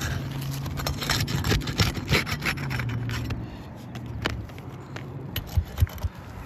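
Asphalt roof shingle being pried loose from its seal strip, with short scraping and tearing sounds as the shingle shreds and its fiberglass mat shows. A steady low hum underlies the first few seconds and stops about four seconds in. A few sharp scrapes come near the end.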